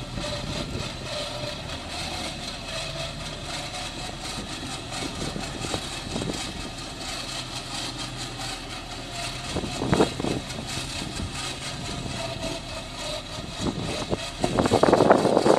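Truck engine idling steadily, with louder rough, noisy bursts about ten seconds in and again near the end.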